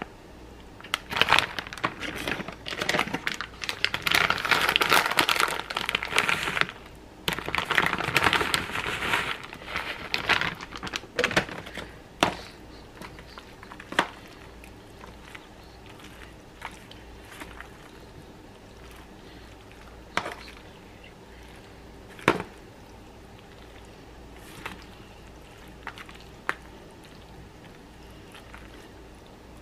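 Crinkling and rustling for about the first ten seconds as shredded cheddar is added to macaroni in a disposable aluminium foil pan. Then a plastic spoon stirs it in, with scattered clicks and taps against the foil.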